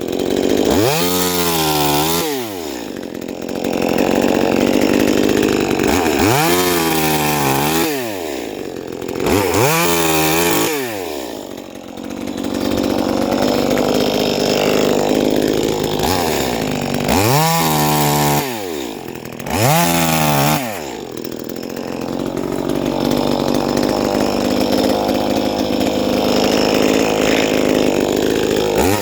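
Huspanda HP2500S chainsaw's engine revving up and dropping back several times, with longer stretches of steady full-throttle running in between.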